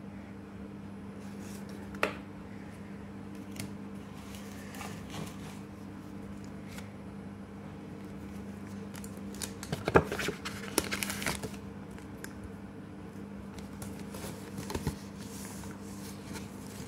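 Trading cards and a thin cardboard pack folder being handled and opened: soft paper rustles and taps, with a denser flurry of rustling about ten seconds in. A steady low hum runs underneath.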